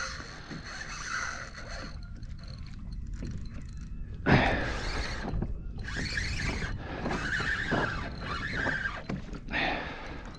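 Spinning reel working against a hooked bonefish: the drag buzzes in a high, wavering whine from about four seconds in, broken by short pauses, over a steady low rumble.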